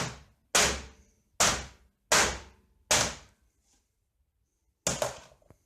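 A laptop being smashed with repeated hard blows: four sharp cracks about one a second, each dying away quickly, then a pause and two quick blows in succession near the end.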